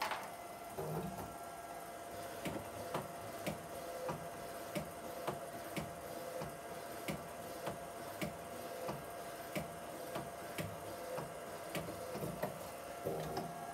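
Cookie printer printing an image onto a cookie held in its tray: a steady mechanical whine with regular clicks about twice a second as the print head passes back and forth.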